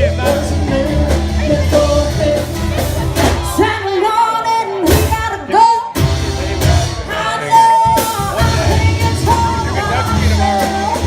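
A live rock band playing, with a singer over bass and guitar. The bass drops out briefly near the middle.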